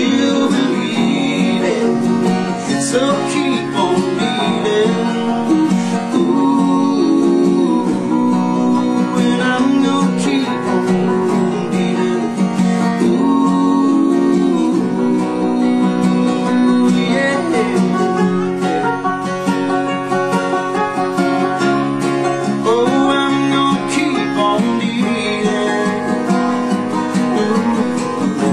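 Country band playing live, led by acoustic guitars.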